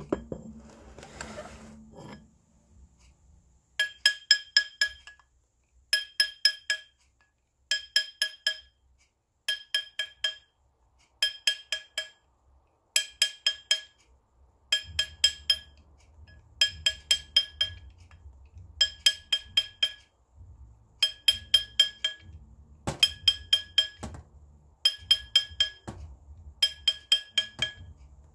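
Hammer blows on a gold ring fitted over a steel ring mandrel, coming in quick bursts of four or five ringing metallic taps about every two seconds, as the ring is stretched up to size.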